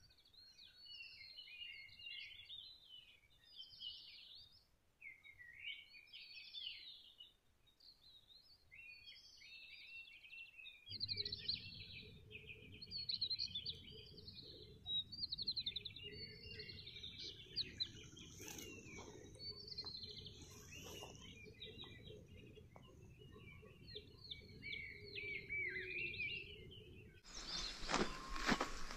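Dawn chorus of many small wild birds chirping and singing, the calls overlapping throughout. A low steady rumble comes in about a third of the way through, and near the end louder rustling and clicks join.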